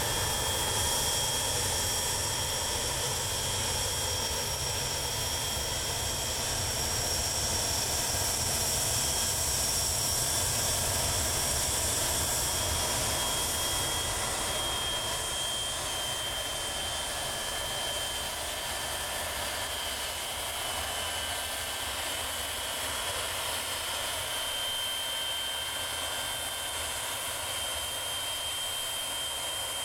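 A Fokker F28 jet's two Rolls-Royce Spey turbofan engines whine steadily at low taxi power, with a high whine over a steady rush. The whine dips slightly in pitch about halfway through.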